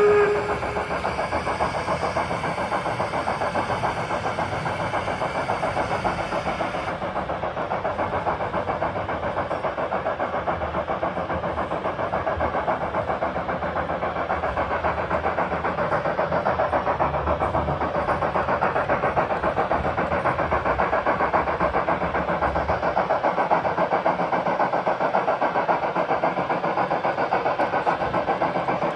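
Sound module of a KM1 gauge 1 model of the class 50.40 Franco-Crosti steam locomotive playing fast, steady steam chuffing as the model runs. A whistle dies away right at the start, and a high hiss stops about seven seconds in.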